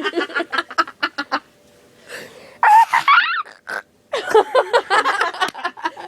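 Girls' voices making silly, exaggerated nonsense noises in quick choppy bursts, with a quieter gap of about a second partway through and one longer drawn-out cry in the middle.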